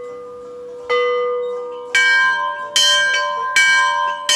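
Bells struck one after another at different pitches, about one strike a second, each left ringing on. The strikes grow louder and brighter about two seconds in.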